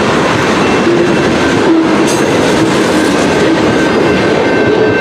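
Freight train rolling steadily past at close range: a loud, continuous rumble and rattle of steel wheels on the rails, with a faint, steady high-pitched squeal.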